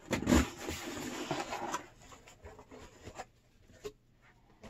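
Cardboard box being opened by hand: flaps and packing rubbing and rustling for about two seconds, loudest near the start, then a few light taps and clicks as the contents are handled.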